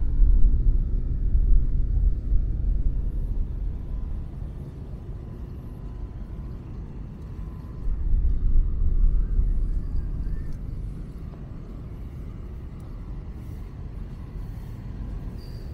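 Low outdoor rumble, loudest in the first three seconds and swelling again about eight seconds in.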